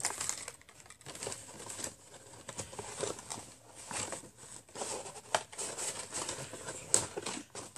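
Worn cardboard kit box handled and its flap pulled open, giving irregular crinkling, rustling and light knocks of cardboard and paper.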